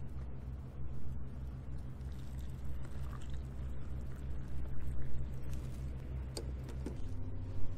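Hot water poured from a small camping pot into a cup of instant miso soup, over a low steady hum that shifts in pitch about seven seconds in.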